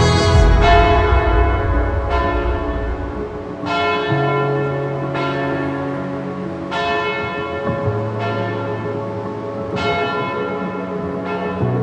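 Slow soundtrack music of bell-like chimes, one note struck about every one and a half seconds and left ringing, over a held low bass note that changes pitch every few seconds.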